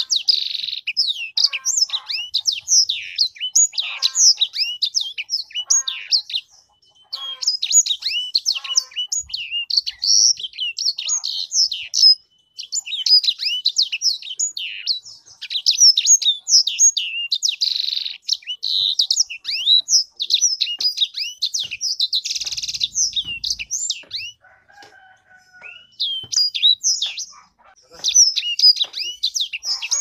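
Caged sanger songbird singing a long, fast run of high twittering and warbling notes, broken by short pauses about seven, twelve and twenty-five seconds in. A brief rustling noise comes a little past the twenty-two-second mark.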